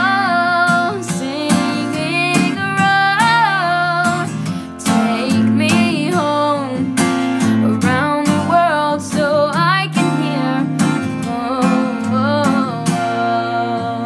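Background song: acoustic guitar with a singing voice carrying the melody.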